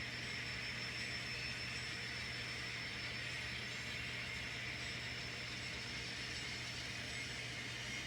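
Steady whir of N scale model locomotives running on the layout, over a low steady hum and a thin high whine.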